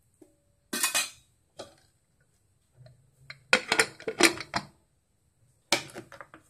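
Aluminium pressure cooker lid clattering onto the pot as it is set in place, with separate metal clinks and knocks; the loudest clatter comes about three and a half to four and a half seconds in.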